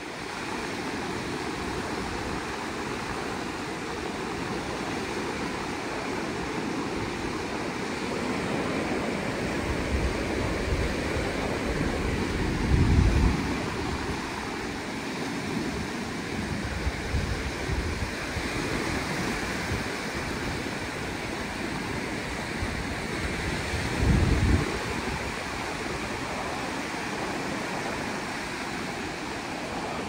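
Small sea waves washing up onto a sandy beach, a steady surf hiss, with wind buffeting the microphone; two stronger gusts come a little before halfway and near the end.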